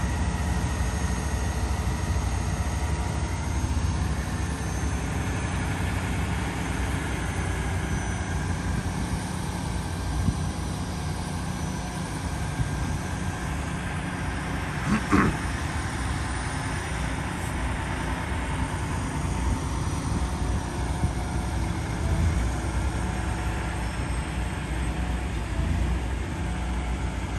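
Diesel engine of a heavy-haul semi tractor running at a low, steady rumble as it slowly pulls a steel bridge beam on a multi-axle trailer, with one short sharp noise about halfway through.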